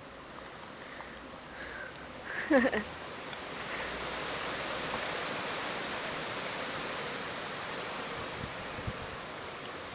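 Wind blowing over the microphone: a steady rushing hiss that swells from about three seconds in. A brief rising squeal about two and a half seconds in is the loudest sound.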